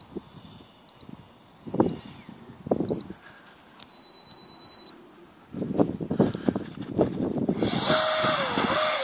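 Short high electronic beeps about once a second, then one longer steady beep lasting about a second. Near the end comes a loud rushing whine whose pitch dips and comes back up: the Funjet's 12-blade 70 mm electric ducted fan on its BL32 motor being throttled up while the jet sits on the grass.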